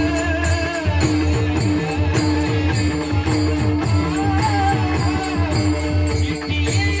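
Marathi pingla folk music: a quick even beat of hand percussion with jingles, a steady held drone note and a winding melody line over a heavy bass.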